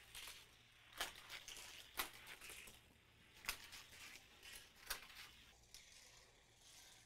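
Faint rattle of a Hot Wheels Rig Storm die-cast car rolling along plastic Hot Wheels track, with four sharp clicks and knocks spaced about a second apart as it runs through the track pieces and kicker loops.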